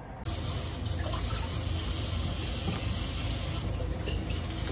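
Kitchen tap running into a stainless steel sink while an eggplant is rinsed under the stream, a steady rush of water that starts abruptly just after the start.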